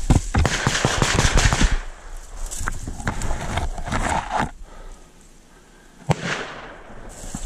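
Footsteps and snapping branches as someone pushes quickly through dry brush and fallen leaves: a dense run of crunches and cracks for about two seconds, then scattered ones, and a single sharp crack about six seconds in.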